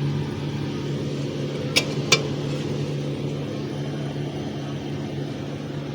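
Refrigerator compressor running with a steady hum, with two sharp clicks about two seconds in.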